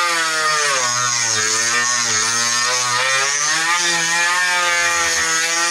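Dremel rotary tool with a small saw blade cutting into a hollow guitar body's wood, its motor whining steadily. The pitch sags and recovers a couple of times in the first half as the blade bogs under load.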